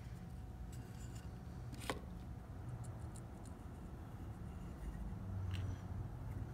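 Quiet handling of small encoder parts on a servo motor shaft: two faint sharp clicks, about two seconds in and again near the end, over a low steady hum.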